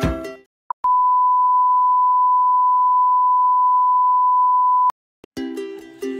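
A steady electronic beep at one unchanging pitch, held for about four seconds and cut off abruptly. Music fades out just before it and starts again near the end.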